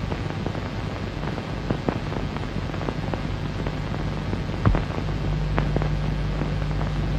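Steady hiss with a low hum, broken by scattered faint clicks and one louder thump a little before five seconds in.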